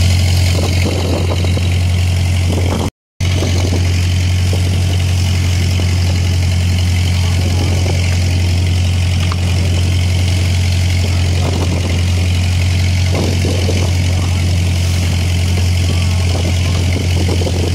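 A boat engine running steadily at a constant low drone, with a very brief dropout about three seconds in.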